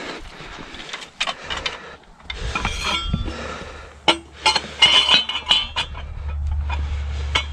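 Farrier's metal tools clinking and knocking in a series of sharp, irregular strikes, a few with a brief metallic ring. A low steady hum comes in about six seconds in.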